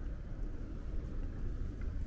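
Steady low rumble of outdoor street ambience, with no distinct events.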